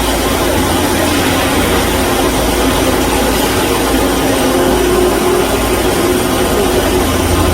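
KOTEC Diamond-1000T high-speed band saw machine running steadily: a loud, even mechanical noise with a low rumble and a steady hum.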